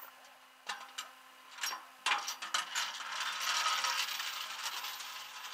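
Tow-truck tie-down chain and hooks clinking against metal. There are a few sharp separate clicks at first, then a longer, denser rattle about halfway through.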